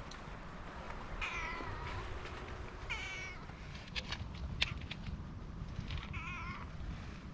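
Orange tabby cat meowing three times as it is stroked, each a short wavering cry, which the owner takes for the cat showing pleasure at being petted. A few sharp clicks come between the second and third meow.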